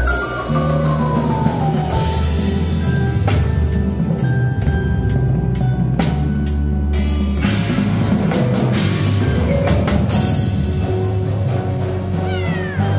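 Indoor percussion ensemble playing live: marimbas and other mallet percussion struck over drum kit, cymbals and sustained low bass notes, with many sharp strikes and ringing tones.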